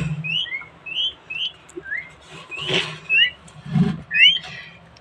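Peafowl chicks peeping: short, high, rising chirps repeated every half second or so, sometimes two in quick succession.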